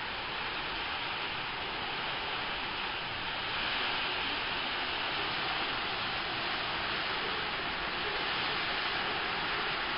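Steady rain falling, an even hiss that grows a little louder about a third of the way in.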